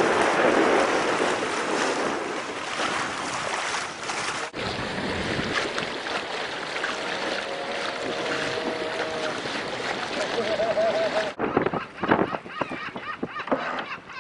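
Wind on the microphone and rushing water aboard a sailing yacht under way, a steady noisy rush. It cuts off abruptly about eleven seconds in, leaving quieter, uneven sounds.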